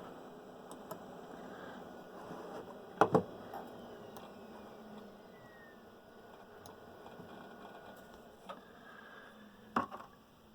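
Old Apple Macs being shut down: a couple of sharp clicks about three seconds in and another near the end, with a faint whine falling in pitch in the middle, over a low hiss.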